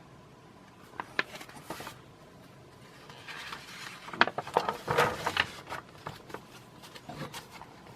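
Paper catalog pages being handled and turned: a couple of sharp clicks about a second in, then rustling and crinkling of paper between about three and five and a half seconds in.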